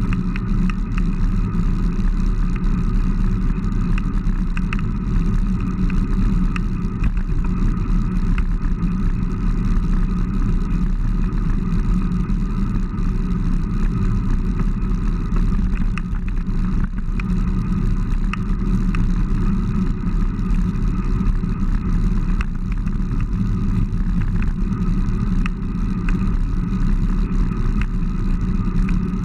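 Steady wind buffeting and road rumble on a handlebar-mounted camera's microphone as a road bike rides along asphalt.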